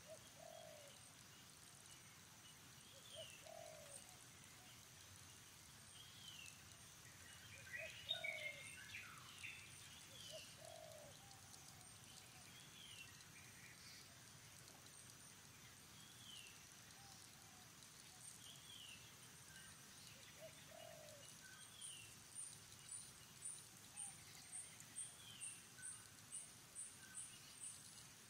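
Faint outdoor birdsong: a bird repeating a short falling call every second or two over low, short notes, with a brief louder flurry of calls about eight seconds in. Near the end, a fast, even series of high-pitched chirps comes about two a second.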